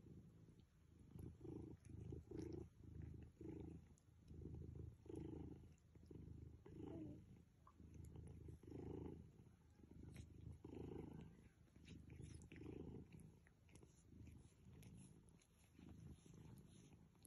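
Long-haired domestic cat purring, a low purr that swells and fades about once a second with each breath, the sign of a relaxed, contented cat.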